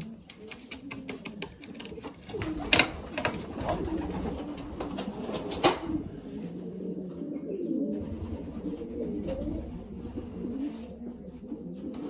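Racing pigeons cooing over and over. Two sharp knocks cut through, about three seconds in and again about three seconds later.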